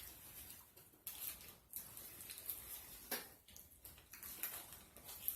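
Faint wet chewing and lip-smacking of someone eating fast food, with short sharp smacks and clicks every second or so.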